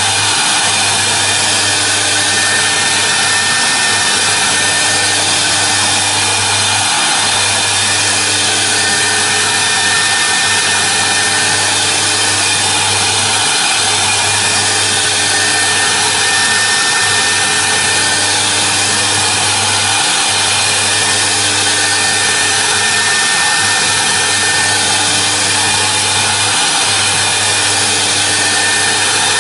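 CNC router spindle running at speed while a small engraving bit cuts a workpiece turned on the rotary axis. It gives a steady whine over a constant cutting hiss, and a low hum briefly drops out every three seconds or so.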